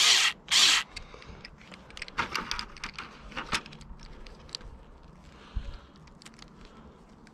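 Hands working small parts on an ATV handlebar while fitting heated grips: two short hissing rustles at the start, then scattered light clicks, scrapes and rattles, and a soft thump near the end.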